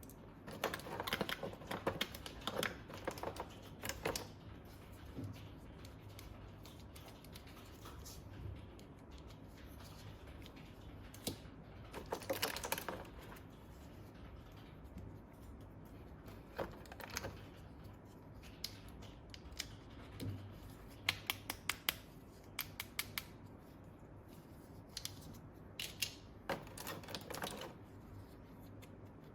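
Small plastic toy parts being handled and fitted together: clusters of rapid light clicks and rattles, coming in bursts of a few seconds with quiet gaps between.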